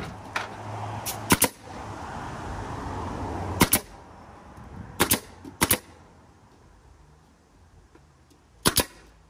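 Nail gun firing nails into wood boards: sharp shots, a quick pair about a second in, single shots over the next few seconds, and another quick pair near the end.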